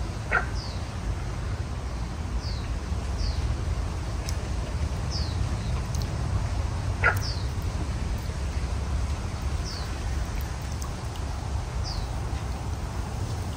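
Wild birds calling over a steady low background rumble: a short, high falling note repeats every second or two, and twice a louder, lower falling call sounds, just after the start and about halfway through.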